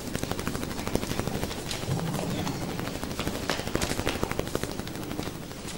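A small audience applauding: many quick, irregular hand claps run on steadily.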